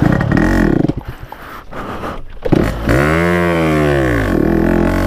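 Yamaha RX-King two-stroke single-cylinder motorcycle engine under way. It quietens about a second in, revs up and back down near the three-second mark, then holds a steady note.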